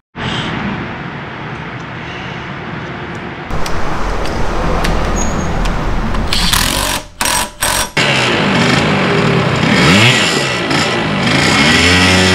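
A cordless impact driver hammers in short bursts on the scooter's transmission nut. Then the Honda Dio's small two-stroke engine revs down and up a few times and settles into a steady run near the end.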